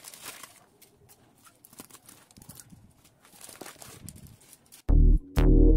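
Plastic mailer bag rustling and crinkling as it is handled and pulled open. Near the end, loud electronic music cuts in with two heavy, short synth notes, louder than the rustling.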